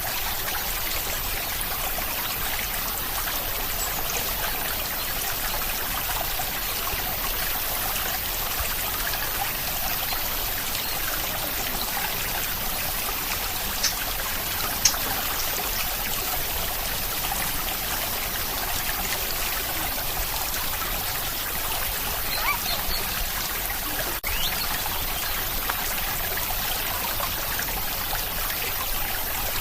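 Steady rain with water trickling, an even hiss of falling water. A few louder drops tick out, twice about halfway through and once more later on.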